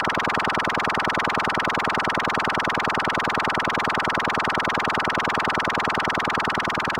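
Synthesized sci-fi laser-ray sound effect: a steady buzzing tone modulated into a fast, even pulsing that holds unchanged throughout.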